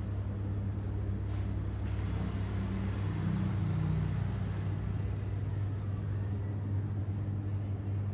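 A steady low mechanical hum with a rumbling noise under it, swelling a little a few seconds in.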